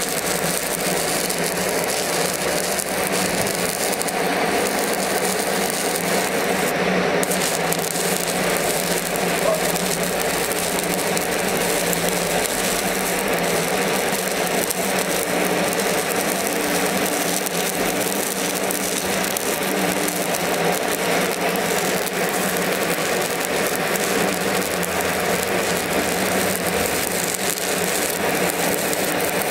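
Shielded metal arc (stick) welding: the electric arc crackles and sizzles steadily as the electrode burns along a horizontal joint, with a steady low hum underneath.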